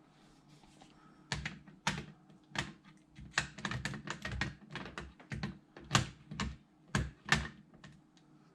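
A run of sharp, irregular clicks and knocks, about two a second, as an airsoft rifle scope and its parts are handled and fitted back onto the rifle.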